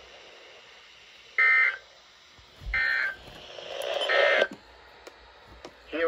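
Three short NOAA Weather Radio SAME data bursts, about a second apart, played through weather radio receivers: the end-of-message tones that close a special marine warning. A rising rustle leads into the third burst.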